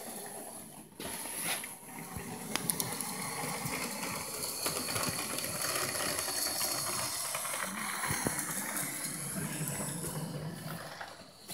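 Small model industrial switcher locomotive running along the track: a steady mechanical whirr and rattle from its motor and wheels on the rails, with a few sharp clicks.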